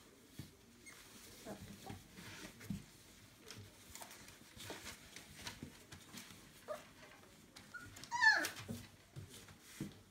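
Entlebucher puppies whimpering and squeaking as they shuffle about on newspaper, with one loud whine about eight seconds in that falls sharply in pitch.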